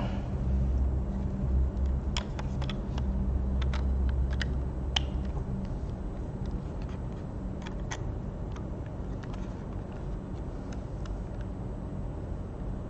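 Scattered sharp plastic clicks and handling sounds as RJ45 cable plugs are pushed into a LAN cable tester, over a low rumble that fades after about five seconds.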